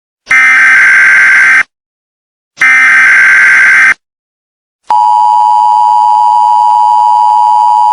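Emergency Alert System alert: two loud bursts of SAME header data, each about a second and a half of buzzing digital noise with a gap of silence between, then after a second's pause the steady two-tone EAS attention signal starts about five seconds in.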